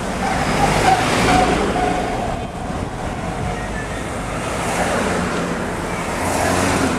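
Road traffic noise heard from inside a moving car: a steady rush of engine and tyre noise, swelling about a second in and again near the end as cars pass close alongside.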